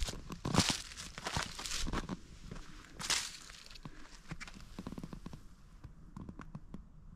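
Footsteps crunching through dry fallen leaves and twigs on rocky ground, several heavy crunches in the first few seconds, then only a few light crackles as the walker stops.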